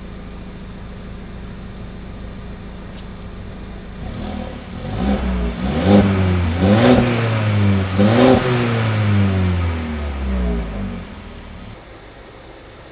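Mercedes-Benz CLA 180's 1.6-litre turbocharged four-cylinder petrol engine idling, then revved about four seconds in with three quick rises and falls in engine speed, and settling back to idle near the end.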